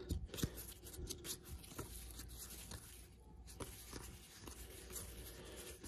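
1987 Topps cardboard baseball cards being flipped through by hand, with faint, irregular soft ticks and rustles as the cards slide over one another.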